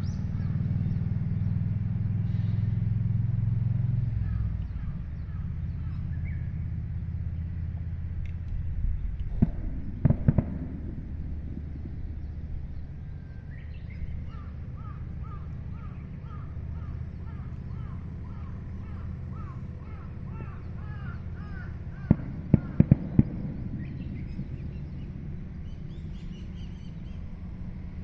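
Outdoor ambience with a steady low rumble and birds calling in repeated chirps. Two clusters of sharp bangs cut through it, three about ten seconds in and four around twenty-two to twenty-three seconds; these are the chance bangs the uploader likens to enemy gunfire.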